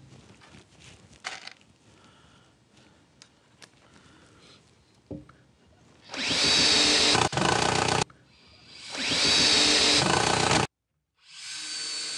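Cordless drill-driver driving screws into plywood. A few light knocks and clicks come first, then the drill runs four times in the second half, each run a second or two of steady motor whine.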